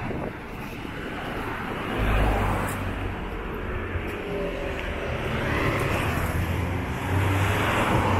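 Street traffic: motor vehicles passing close by, their tyre and engine noise swelling and fading. A low engine hum sets in about two seconds in and grows loudest near the end.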